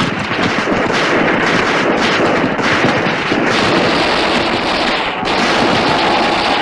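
Dense, continuous rifle fire from many infantry rifles, shots overlapping into a steady battle crackle.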